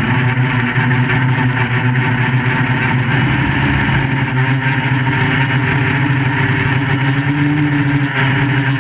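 QAV400 FPV quadcopter's electric motors and propellers in flight, a steady multi-pitched buzz with a haze of air noise. The pitch shifts a little as the throttle changes.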